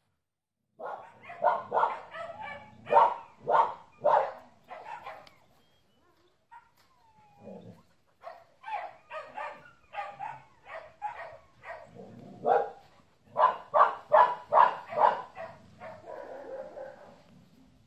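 Dog barking repeatedly: two runs of quick, short barks, a couple a second, with a pause of about three seconds between them.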